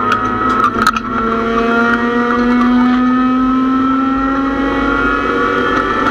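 Race car engine heard from inside the cockpit under hard acceleration. The note breaks briefly about a second in, then climbs steadily in pitch as the car pulls down the straight.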